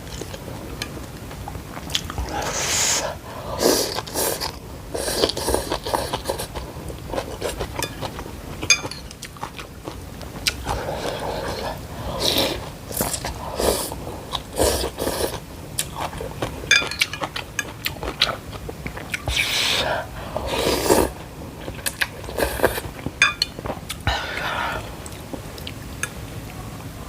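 A person eating bún mắm, a fermented-fish noodle soup, close to the microphone: repeated bites and wet chewing, with scattered sharp clicks.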